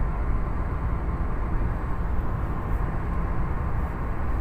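Steady road and engine noise inside a moving car's cabin: an even low rumble with a faint steady hum above it.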